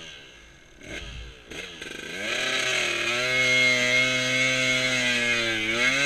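KTM enduro motorcycle engine in deep mud, blipped at low revs at first. About two seconds in it is revved up and held at a steady high pitch, then drops back near the end.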